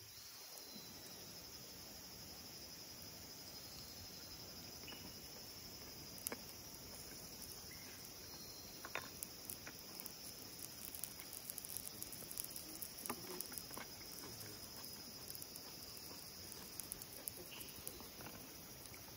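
Steady background chirring of crickets or other insects, with scattered faint clicks and small crackles.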